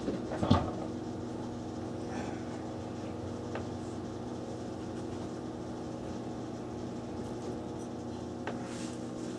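A steady hum made of several low steady tones, with a few faint clicks.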